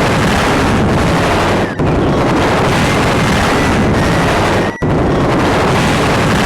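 Loud, dense continuous rumbling noise with brief dropouts about every three seconds.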